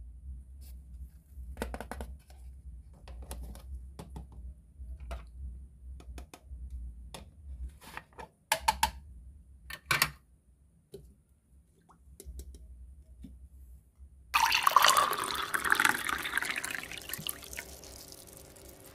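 Plastic toy kitchen pieces clicking and clattering as they are put in place, then, about fourteen seconds in, liquid poured from a small plastic toy kettle into a plastic toy pot, starting suddenly and loud and fading away.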